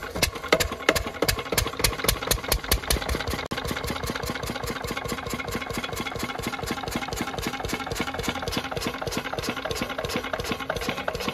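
Field Marshal Lister-type single-cylinder diesel engine running just after being hand-cranked into life, after standing unused a long time. It fires with a regular knock at about five a second, loud and uneven for the first few seconds, then settles into a steady beat.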